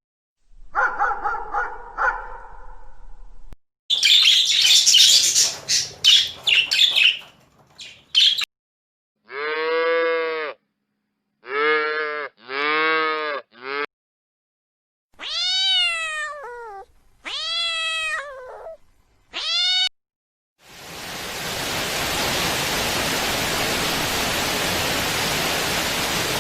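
A series of short recorded animal sounds with silent gaps between them: high chirping, three cat meows, then three falling calls, followed by about six seconds of a steady rushing hiss.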